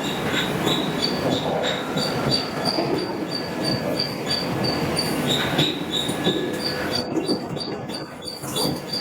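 Hydraulic forging hammer pounding a hot steel billet in quick repeated blows, each stroke giving a high metallic ring, about two to three times a second, over steady shop clatter.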